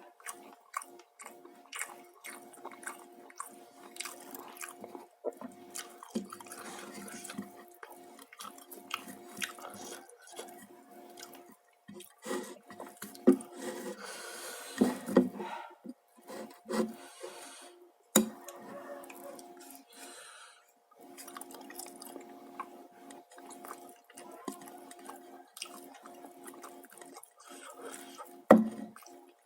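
Close-miked eating sounds: wet chewing and lip-smacking with irregular small clicks, a few louder about halfway through and near the end, over a faint steady hum.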